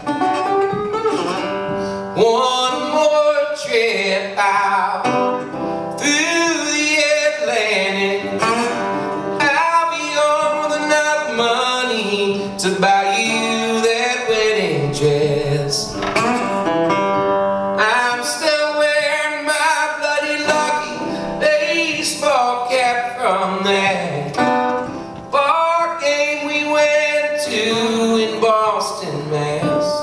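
A man singing a folk song, accompanying himself on a resonator guitar with plucked notes under his voice.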